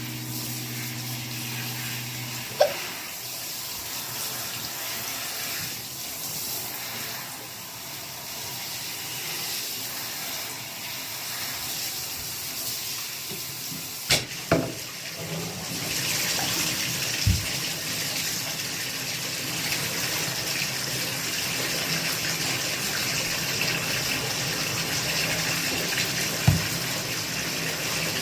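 Water running steadily from a tap, louder about halfway through, broken by five short, sharp hiccups at irregular intervals, two of them close together.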